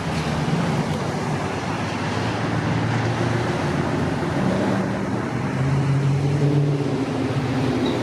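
Road traffic: a steady hum of passing cars, with one vehicle's low engine drone growing louder past the middle.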